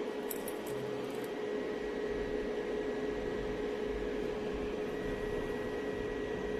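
Steady hum and hiss with a constant mid-pitched tone, and a few faint ticks about a second in.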